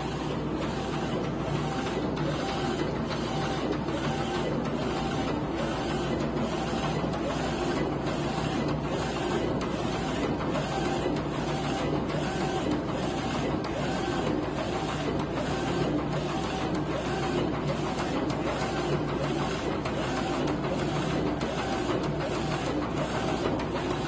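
A 30 cm DTF (direct-to-film) printer printing onto PET film: the print-head carriage shuttles back and forth with an even, repeating swish about one and a half times a second, over the machine's steady hum.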